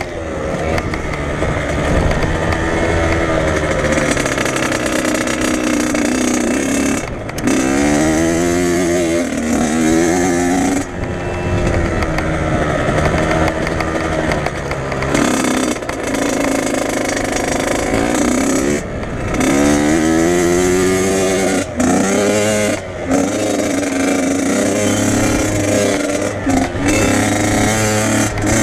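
Dirt bike engine heard up close from the bike as it is ridden around a motocross track, revving up and down through the gears, its pitch climbing and falling again and again. Several times the sound drops briefly as the throttle is closed.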